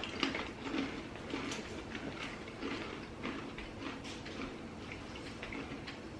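People chewing crunchy pretzel bites, with irregular small crunches and crackles several times a second.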